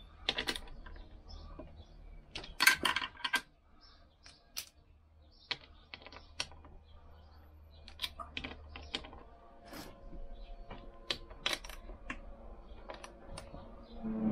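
Small irregular metallic clicks and taps as the nuts are run onto the studs of a Lambretta gearbox end plate and tightened, with a denser, louder run of clicks about three seconds in.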